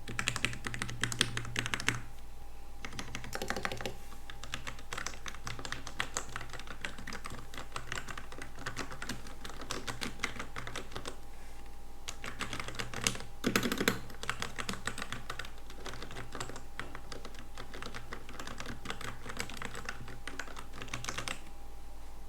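Typing on a computer keyboard fitted with homemade keycaps: a fast, dense run of key clicks. It breaks off briefly about two seconds in and again about eleven seconds in, and stops about a second before the end. A faint steady hum sits underneath.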